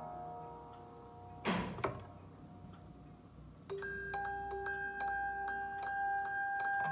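F. LeCoultre cylinder music box: the last notes of one air ring away, then the mechanism gives a sharp clack and a lighter click about a second and a half in, as the cylinder shifts to the next tune. After a short pause the steel comb starts plucking the new tune.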